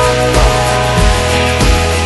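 Rock music with a steady drum beat and dense, sustained instrumental tones.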